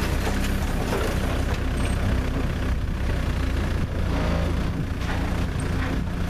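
Forklift engine running steadily under load while the forks lift a car, with scattered knocks over it.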